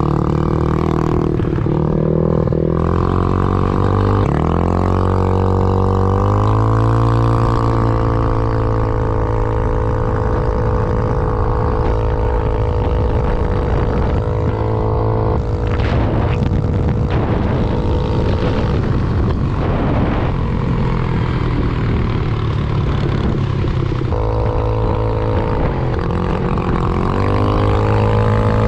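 80cc big-bore GY6 scooter's single-cylinder four-stroke engine, fed by a flat-slide carburettor with no air filter, pulling hard under throttle: the revs climb about four seconds in, then hold steady at cruising speed. Near the end the revs dip as the rider eases off, then rise again.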